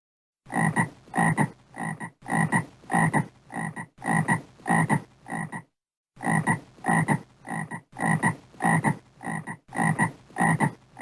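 Frog croaking in a quick, even series of short calls, about two to three a second, in two runs with a brief pause near the middle.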